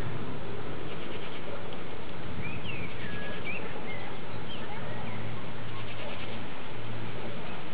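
Steady hiss of rain falling during a thunderstorm. A few short bird chirps come through it a few seconds in.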